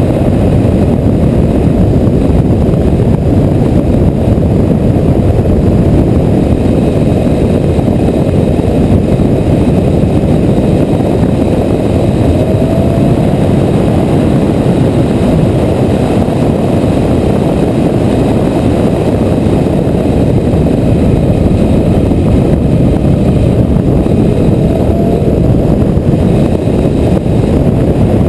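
Onboard sound of a Porsche GT3 at track speed: a loud, steady rush of wind and road noise on the microphone buries the engine note, which rises faintly a few times, about halfway through and near the end.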